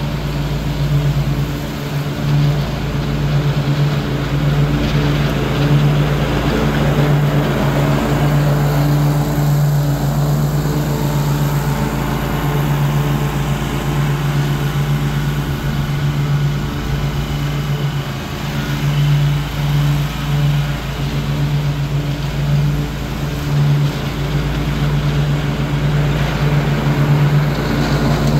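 Ariens Ikon zero-turn mower's engine running steadily at mowing speed with the blades engaged, cutting grass.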